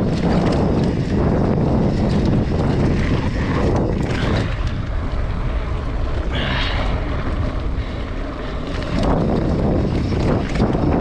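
Wind rushing and buffeting over the camera microphone during a mountain bike ride, with a constant low rumble underneath. It eases for a few seconds in the middle.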